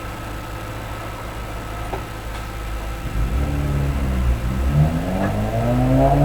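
BMW E46 convertible power-top mechanism running through its cycle, its pump and motors working normally after the latch repair. A steady low hum, then about three seconds in a louder whine that climbs and shifts in pitch as the top moves.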